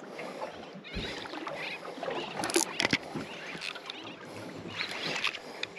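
Small conventional jigging reel being cranked fast as a jig is worked, with a few sharp clicks about two and a half to three seconds in.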